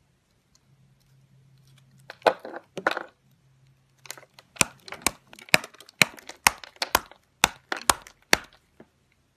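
Dry, brittle soap balls crushed in the hands: two crumbly crunches, then a string of sharp cracks about two a second as the soap breaks apart.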